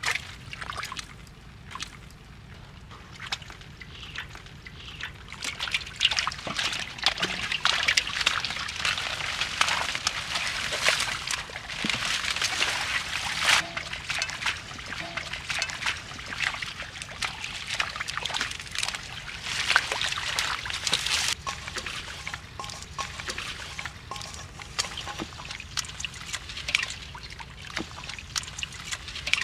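Shallow muddy water splashing and sloshing as hands work through it, with many small splashes and drips, busiest through the middle.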